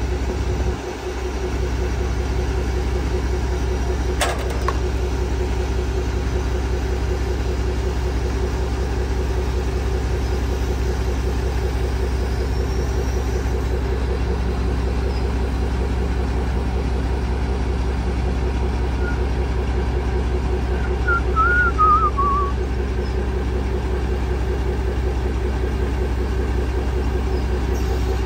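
Foden recovery truck's diesel engine running steadily to work its crane as the FV432 engine pack is lowered. A sharp click sounds about four seconds in, and a brief high warbling whistle comes about three-quarters of the way through.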